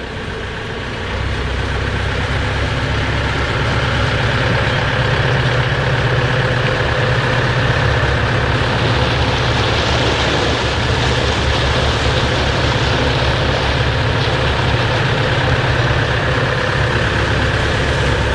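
Boat engine running steadily, with a rush of wind and water over it; the sound grows louder about a second in and then holds steady.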